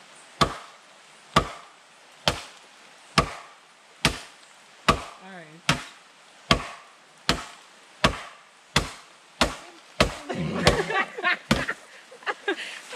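Cutlass (machete) chopping into bamboo: a steady run of sharp blows, about one a second.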